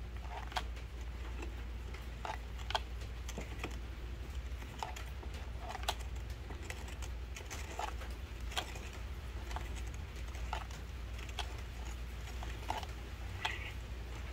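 Hard plastic clicks and taps as an Echo Speed-Feed trimmer head is turned by hand onto its threaded stud, coming irregularly about once a second.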